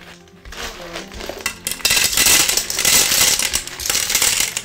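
Fresh river snails poured from a bowl into a metal pressure cooker, their shells clattering and rattling against each other and the pot. It builds from about half a second in and is loudest through the second half.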